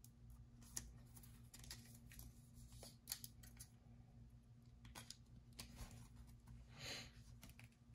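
Faint scraping and light clicks of a trading card being slid into a rigid clear plastic top loader, with a short swish near the end.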